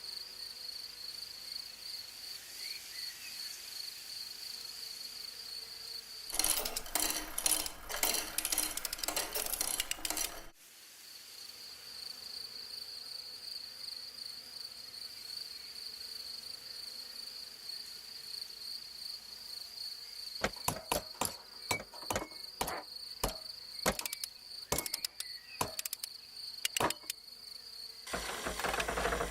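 Steady high insect trill like a cricket's chirring, broken off for about four seconds by loud rustling clatter, then back. Over the last several seconds a string of irregular sharp clicks sounds over the trill.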